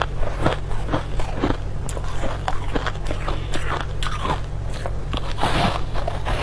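Crushed ice being chewed close to the microphone: crisp crunches about two a second, with a denser run of crunching about five seconds in.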